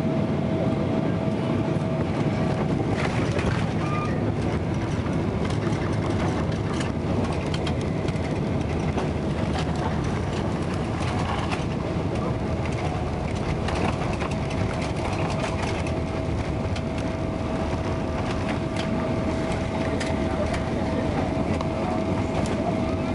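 Cabin noise inside a Boeing 777-300ER airliner on its landing approach: a steady roar of engines and airflow with a constant hum tone, and a few faint ticks and rattles.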